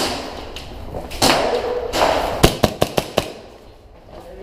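Airsoft gun firing a quick string of about five sharp shots a little past halfway, after a couple of bursts of noise.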